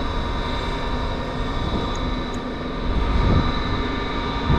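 Steady mechanical hum: a low rumble carrying several constant whining tones, with a brief low thump near the end.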